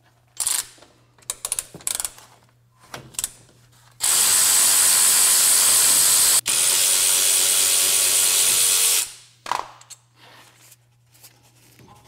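Cordless power ratchet spinning a brake caliper bolt out. A few clicks and taps come first, then the motor runs steadily for about five seconds, with a momentary break partway, and stops.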